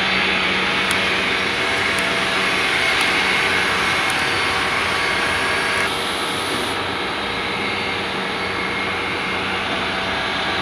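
Steady mechanical engine noise from heavy construction machinery and road traffic, with a low hum throughout. It gets slightly quieter and duller about six seconds in.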